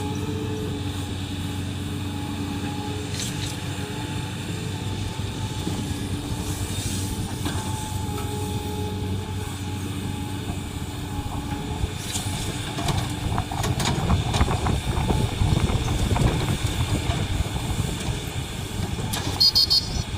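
Heavy diesel machinery running steadily, with its engine note holding a few steady tones. From about twelve seconds in it grows louder and rougher, with clanks and rattles.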